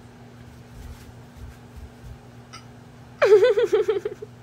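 A Rhodesian Ridgeback/McNab/English Lab mix puppy gives one loud, warbling, howl-like vocalization about a second long, its pitch wobbling quickly up and down, starting about three seconds in.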